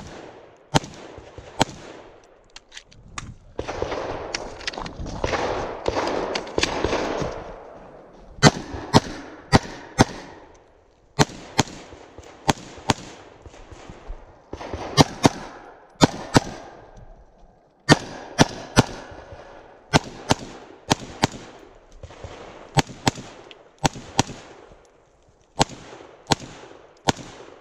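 Handgun fired in quick pairs and short strings of shots, each string a second or two long, with brief pauses between them. From about four to eight seconds in, a stretch of steady rustling noise comes in among the first shots.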